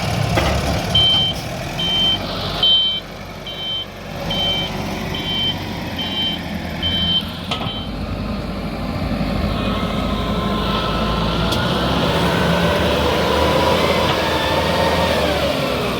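MCM 916L front end loader reversing: its reverse alarm beeps about eight times, roughly once a second, over the running engine. After the beeping stops, the engine note rises and falls as the machine works.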